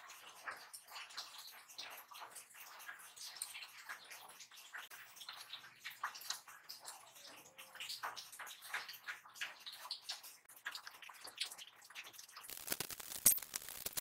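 Faint, irregular small metallic clicks and ticks from a steel thread tap and a brass fitting being handled in a steel bench vise. About twelve seconds in the sound gets louder, with a couple of sharp metal clinks.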